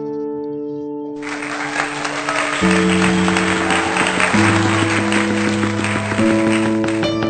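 Background music of sustained, slowly changing chords. About a second in, a loud hissing wash like applause joins it and cuts off near the end.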